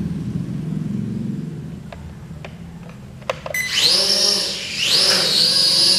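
JJRC H68 quadcopter's brushed motors spinning up for takeoff. A low hum and a few light clicks come first. About halfway through a high whine rises, dips briefly and rises again, then holds steady.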